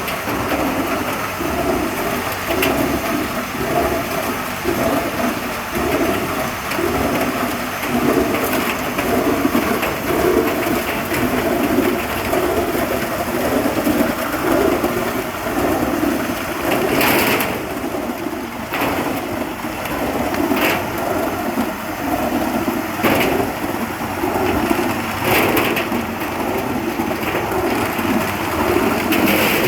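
Crystal ice machine running, with a rough pulse about once a second and scattered sharp clicks.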